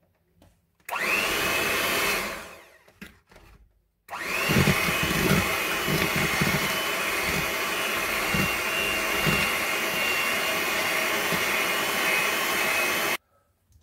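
Electric hand mixer with wire beaters beating flour, baking powder and vanilla into whipped eggs and sugar for cake batter. It runs briefly about a second in and winds down, then starts again about four seconds in and runs steadily with a high whine before cutting off near the end.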